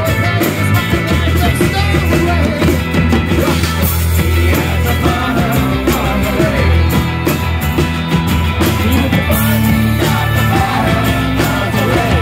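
Live rock band playing amplified: acoustic and electric guitars with drums and cymbals, and a lead singer at the microphone.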